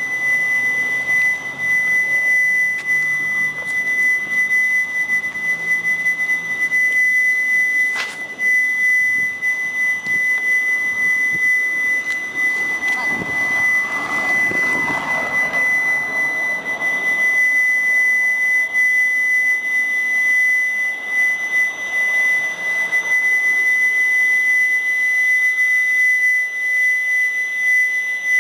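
An unexplained, loud high-pitched tone: one steady pitch held without change, with fainter higher overtones above it, heard as though it were in the air all around with no place to point to. A short click cuts across it about eight seconds in.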